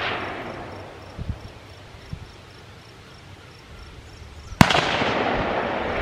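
A single service-rifle shot cracks about four and a half seconds in, its report echoing and fading slowly over the range; at the start the echo of the previous shot is still dying away, with a few fainter distant thumps between.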